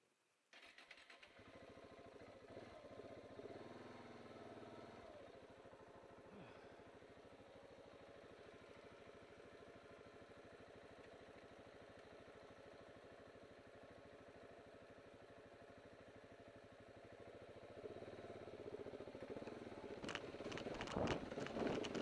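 KTM 690 Enduro R's single-cylinder engine idling steadily while the bike stands on a rocky trail. Near the end it is revved and the bike moves off, louder and rougher.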